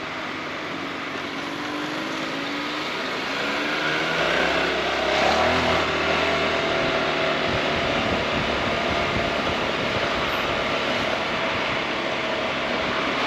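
Honda ADV 350 scooter's single-cylinder engine rising in pitch as the scooter speeds up over the first few seconds, then running at a steady cruising speed. Wind rushes and buffets over the microphone once it is up to speed.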